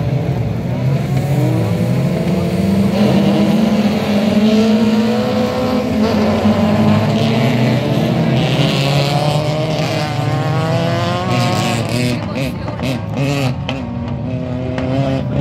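Several autocross cars' engines revving and running hard together as the pack accelerates away along a dirt track, their pitches rising and falling over one another.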